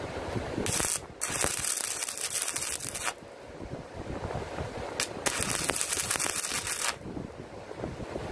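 Stick-welding arc crackling and sizzling as two tack welds are struck on a steel frame with a small 80-amp Harbor Freight stick welder, set at about 69 amps. Two bursts of about two seconds each, each opening with a brief flicker before the arc holds.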